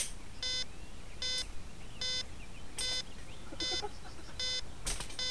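Short electronic beeps from a beeper aboard the crashed radio-controlled model plane, evenly spaced at about one every 0.8 seconds, with a few clicks in between.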